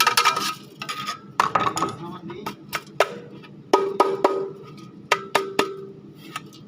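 Repeated sharp clinks and knocks of metal burner parts being handled and tapped, about a dozen irregular strikes, several leaving a brief ringing tone.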